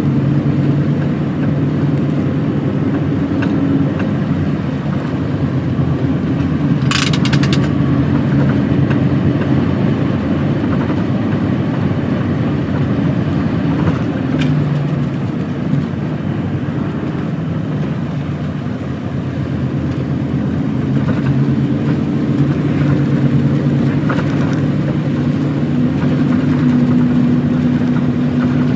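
Heavy truck's diesel engine running steadily on the road, with a short hiss about seven seconds in.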